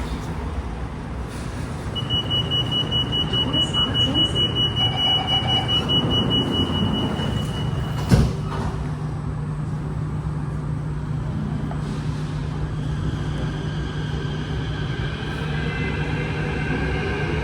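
Inside a Kawasaki-CRRC T251 metro train: the door-closing warning sounds as a high tone pulsing for about six seconds, followed by a sharp thump as the doors shut. A steady low hum follows, and near the end the traction motors start a rising whine as the train pulls away.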